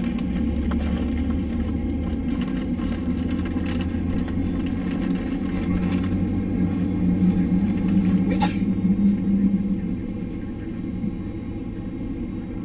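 Boeing 767 cabin noise on the ground: a steady low rumble of the jet engines at taxi power, with an engine hum that swells for a few seconds past the middle. A single click about eight seconds in.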